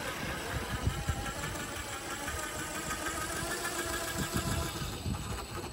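RC4WD Trail Finder 2 scale rock crawler's electric motor and geared drivetrain whining steadily as it crawls slowly up a rock slab, with irregular low rumbles underneath.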